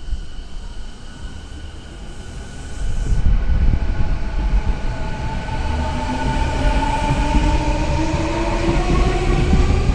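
Electric train pulling away: the rumble of the running gear grows louder about three seconds in, and from about halfway the traction motor whine climbs steadily in pitch, several tones rising together as the train accelerates.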